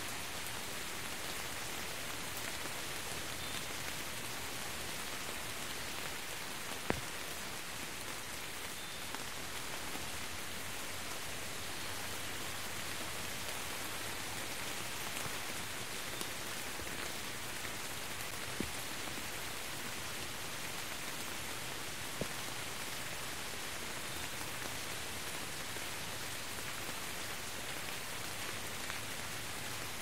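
Steady rain falling and splashing, an even hiss of many drops, with a few louder single drops striking close by.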